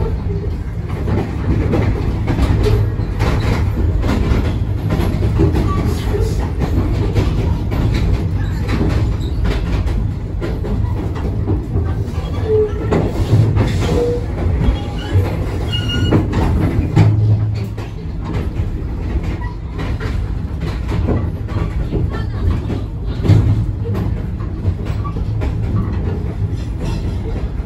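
Passenger train's coaches rolling past with a steady heavy rumble, the wheels clattering repeatedly over the rail joints.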